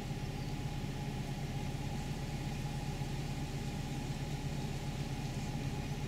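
A steady low hum, like an engine idling, with a wash of hiss above it.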